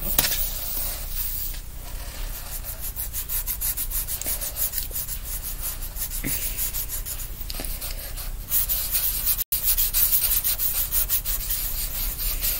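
Felt-tip marker tips scratching across paper in many quick, short strokes as two people draw together. The strokes get denser and louder about two-thirds of the way in, and the sound cuts out for an instant.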